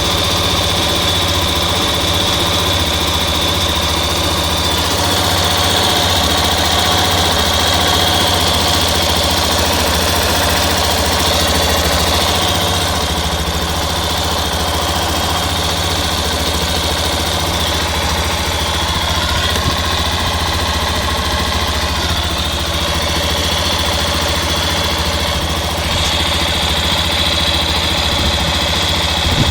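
Yamaha Ténéré 250's single-cylinder engine idling steadily, with a steady high-pitched whine over the engine note whose pitch shifts slightly a few times. The owner is recording it for a strange noise he cannot place.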